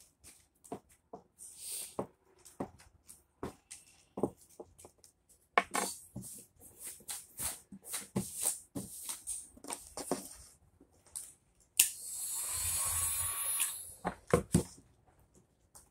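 Scratching, rubbing and tapping as vinyl wrap is worked onto a car interior trim piece with a small hand tool. About three-quarters of the way through, a sharp click, then a corded heat gun blows steadily for about two seconds before stopping, followed by a couple of knocks.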